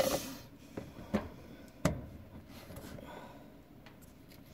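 Chicken pieces faintly sizzling in oil in a small steel pot heated by oil-lamp wicks, with a few sharp clicks, the loudest about two seconds in.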